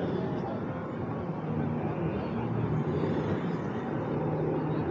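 A steady low mechanical drone with faint chatter of passers-by.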